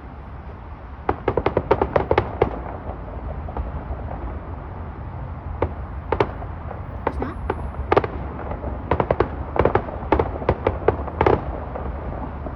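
Distant fireworks going off in quick clusters of sharp pops and crackles, three bursts of them, over a steady low rumble.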